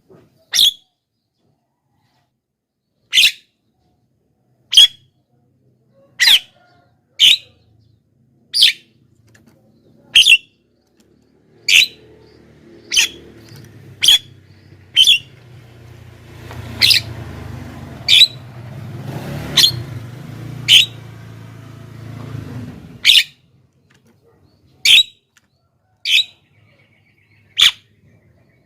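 Javan myna giving short single calls over and over, one every second or two. A low background rumble rises under the calls through the middle stretch and stops abruptly a little after twenty-three seconds.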